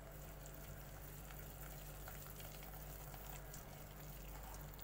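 A hand squishing and mixing thick yogurt marinade with spices and oil in a glass bowl: faint wet squelching with scattered small ticks, over a steady low hum.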